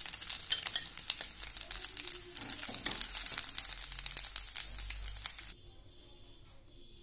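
Fried rice sizzling in a hot metal wok while a metal spatula scrapes and scoops it out, with many small clicks of metal against the pan. The sound cuts off suddenly about five and a half seconds in.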